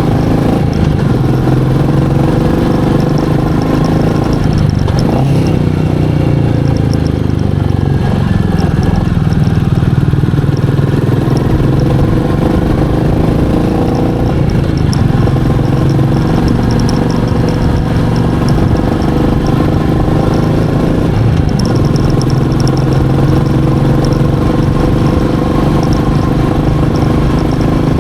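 Royal Enfield Meteor 350's single-cylinder engine running under way. Its note drops and climbs again three times, as the throttle is eased off and opened again.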